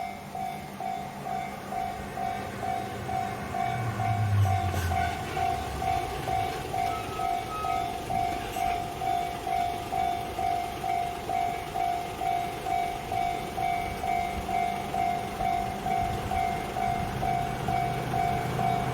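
Japanese railway level-crossing warning bell ringing steadily, an evenly repeating electronic ding. Low train engine noise grows louder near the end as a train approaches.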